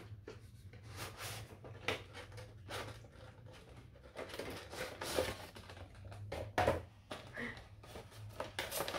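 Cardboard figure box and clear plastic blister tray being handled and opened: irregular taps, scrapes and rustles as the box is turned over and the plastic tray is slid out.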